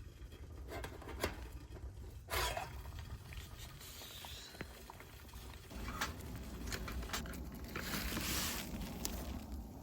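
Scattered small clicks and taps with rustling, two louder rustles about a third of the way in and near the end.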